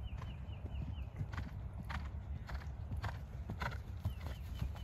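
A horse's hoofbeats on grass as it canters up to a cross-country fence and takes off over it, about two dull beats a second.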